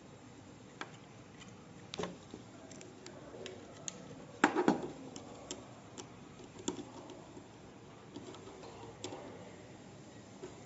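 Small scattered clicks and taps of a camera's plastic housing, circuit board and ribbon cable being handled and fitted together by hand, with a short cluster of louder clicks about halfway through.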